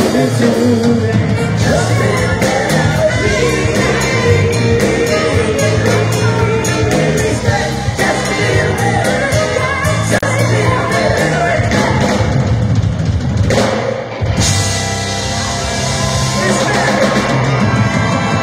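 A rock band playing with a singer, drum kit and guitar. The music dips briefly about fourteen seconds in, then comes back brighter.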